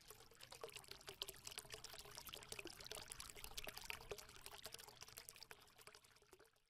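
Faint crackling trickle like water pouring, made of many tiny clicks, swelling over the first few seconds and fading away near the end.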